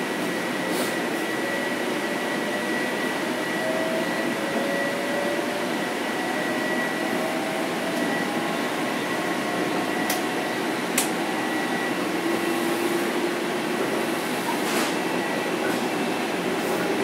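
Inside a Bombardier M7 electric multiple unit in motion: steady rolling and running noise, with a faint whine from the Mitsubishi inverter-driven AC traction motors rising slowly in pitch as the train gathers speed. A few sharp clicks break through.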